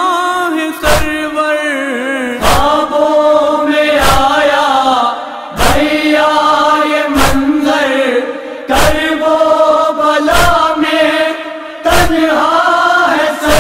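Wordless chanting voices holding a drawn-out, mournful noha melody, over a heavy thump about every second and a half: the chest-beating (matam) that keeps time in a noha.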